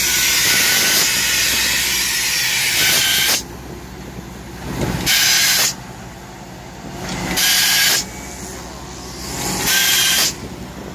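Road-striping truck's paint spray guns hissing: a steady spray for about three and a half seconds, then switching on and off in three short bursts about every two seconds, laying a dashed line. The truck's engine and road noise rumble underneath.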